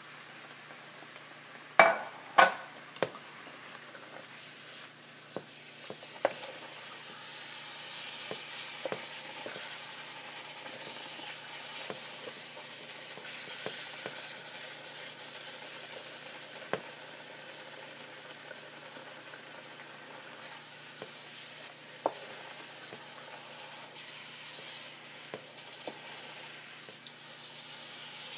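Chicken pieces sizzling in a pan while being stirred, with scattered clinks of a utensil against the pan. Two sharp knocks about two seconds in are the loudest sounds, and the sizzle swells and fades.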